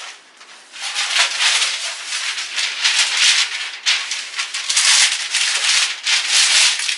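Parchment paper rustling and crinkling as it is pulled off the roll and fitted onto a baking sheet, in uneven surges starting about a second in.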